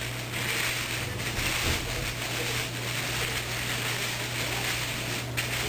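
Steady hiss with a low, even hum underneath: room noise.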